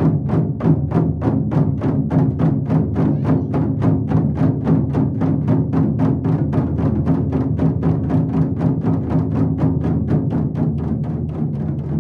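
A group of taiko drums struck together with wooden sticks in a steady, even beat of about four to five strokes a second.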